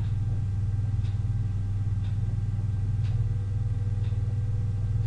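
Steady low electrical hum, like mains hum picked up by the recording, with faint short ticks about once a second.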